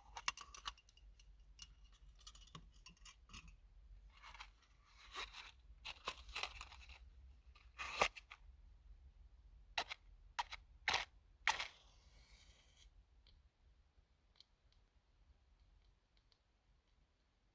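Handling noises as a UCO candle lantern is taken out and set up: short rustling and scraping bursts mixed with sharp clicks. The clicks and rustles fall in the first two-thirds, and only faint ticks follow.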